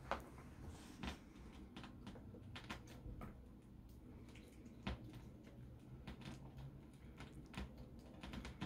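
Grey squirrel gnawing a hazelnut shell: faint, irregular clicks and crunches, a sharp one every second or so.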